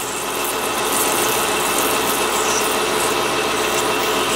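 Small metal lathe running with its chuck spinning, a parting-off blade fed into the stock on auto feed. The sound rises over the first second, then holds steady.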